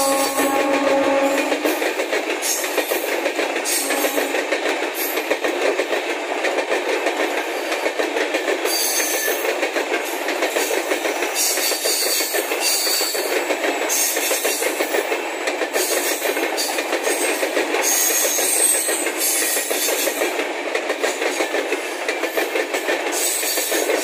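An Indian Railways WAP7 electric locomotive's horn cuts off about a second and a half in. Then a passenger express's coaches pass close at speed: a steady rush of wheels on rail with clickety-clack over the joints and brief faint high squeals.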